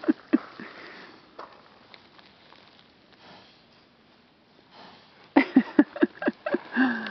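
Gypsy Vanner horse sniffing close to the microphone: a couple of sniffs at first, then a quiet stretch, then a quick run of short sniffs near the end.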